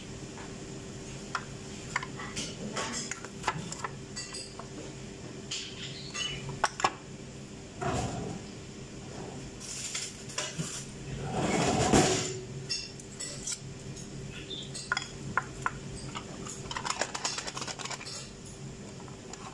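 A metal spoon scraping and clinking against a ceramic bowl as thick labneh is spooned in, with scattered light knocks and clinks. A louder rushing clatter rises and falls about eleven to twelve seconds in. A faint steady hum runs underneath.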